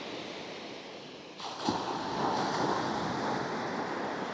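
Waves washing on the shore with wind noise on the microphone, a single knock about a second and a half in.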